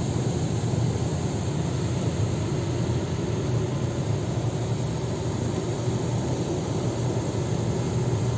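Automatic car wash machinery running steadily around the car, heard from inside the cabin: an even, unbroken rumble and hiss as the car is pulled through the wash in neutral.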